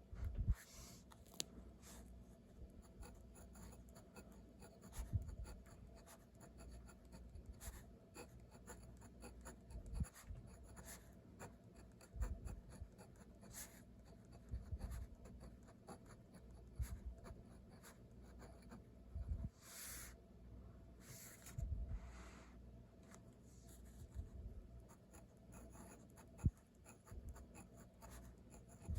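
Pen writing on paper, faint and close: quick irregular scratches and taps of handwritten strokes, with short pauses between characters.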